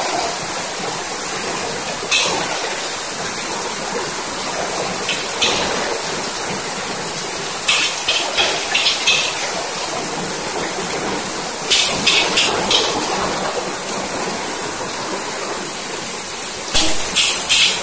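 Fried rice being stir-fried in a street vendor's wok: a steady rushing hiss of the gas burner and frying, broken by sharp metal clanks of the spatula against the wok. Single clanks at first, then quick runs of four to six clanks.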